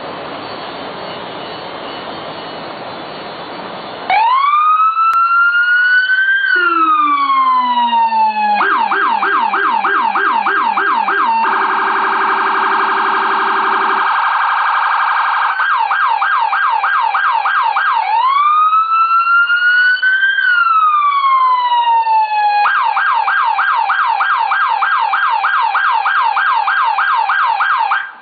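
Federal Signal electronic siren through an Impaxx speaker, with a Rumbler low-frequency siren, starting about four seconds in after some faint background noise. It cycles through its tones: a slow wail rising and falling, fast repeating yelp sweeps, a very fast warble, then yelp, wail and yelp again, and it cuts off just before the end. The Rumbler's deep, shaking tone follows the siren from the first wail's fall through the yelp and into the fast warble, then stops about halfway through.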